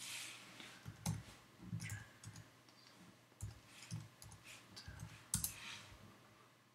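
Typing on a computer keyboard: a run of irregular, short key clicks.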